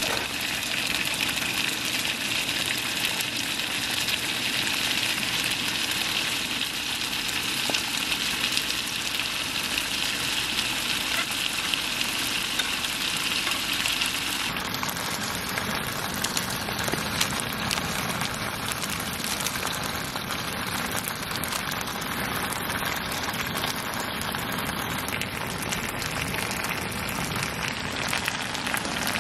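Steady hiss of sauce-marinated meat frying in oil in a small frying pan, mixed with rain falling. The sharper, higher hiss eases about halfway through.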